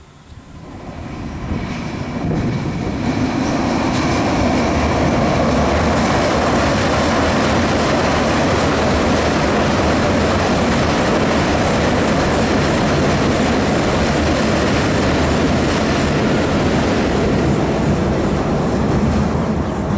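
Two coupled V/Line VLocity diesel multiple units passing over a railway bridge. The diesel engines and the wheels on the rails build up over the first couple of seconds to a loud, steady rumble as the cars go by, with a thin high whine for a few seconds as the train arrives.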